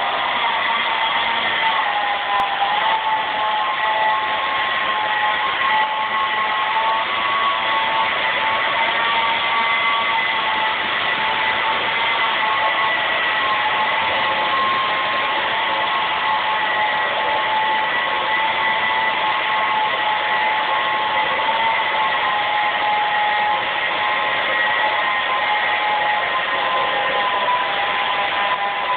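A machine running loudly and without pause: a steady rushing noise with a few held whining tones.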